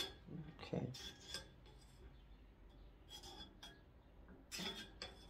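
A metal-and-silicone kitchen utensil tapping and scraping lightly in a small nonstick skillet, pushing a melting pat of margarine spread around the pan: a few short, separate clicks and scrapes.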